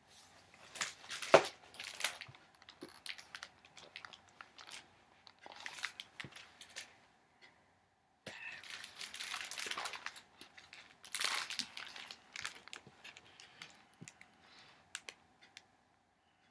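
Paper rustling and handling of a book as its pages are turned and it is held up, in several short spells with scattered small clicks and knocks.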